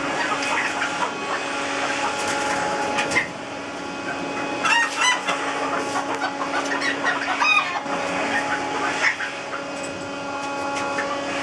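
Chickens clucking and calling in short bursts of pitched calls, a few at a time, over a steady low background hum.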